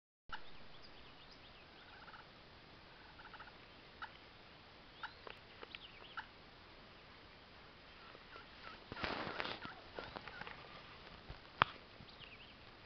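A wild turkey gobbles once, a short rattling burst about nine seconds in, over faint chirps of small birds. A single sharp click follows near the end.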